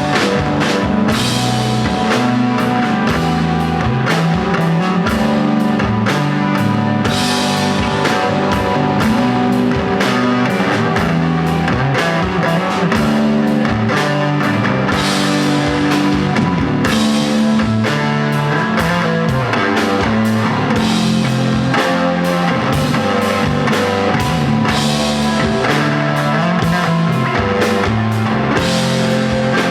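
Live rock band playing, loud and steady: electric guitar and bass holding long low notes over a drum kit with cymbals. No vocals are heard.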